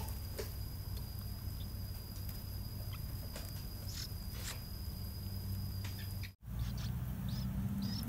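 Yellow-vented bulbul nestlings giving short, high squeaky begging calls while being fed at the nest, a few around four seconds in and more after a brief dropout near the end. Underneath runs a steady low hum, with a thin high whine that stops at the dropout.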